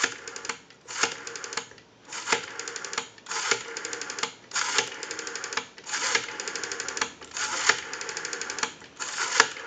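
Rotary dial of a Western Electric 302 telephone being wound and released digit after digit; each release spins back with a quick run of even pulse clicks, a smooth return from a freshly cleaned, oiled and adjusted dial.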